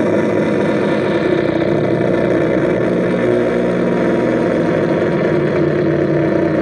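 Psychic Temple Transmitter, a handmade Atari Punk Console–style touch noise synth with built-in echo/delay, droning loudly as a hand rests on its touch contacts: a gritty, noisy buzz around one steady pitch, with lower tones that shift a little partway through.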